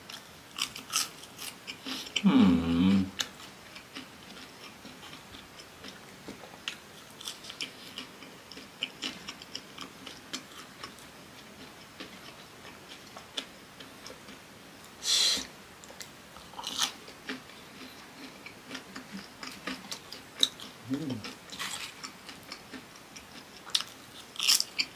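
Close-miked chewing of fried cassava dipped in chili sambal: soft crunches and small wet mouth clicks, with a short hummed voice sound about two and a half seconds in.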